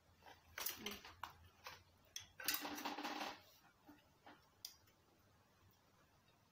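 Light scattered clicks and rustles of plastic spoons and forks against cardboard food boxes and plates during eating, with a louder stretch of under a second about two and a half seconds in.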